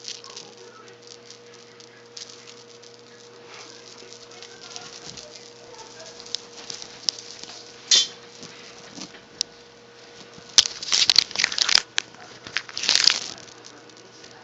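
A cat playing with a toy: light tapping and pattering as it leaps and bats at the toy, with louder crinkly rustling in bursts about two-thirds of the way through.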